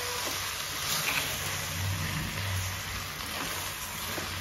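Pumpkin palya sizzling in an open pressure cooker as a metal spoon stirs it: a steady hiss with a few faint scrapes of the spoon against the pot.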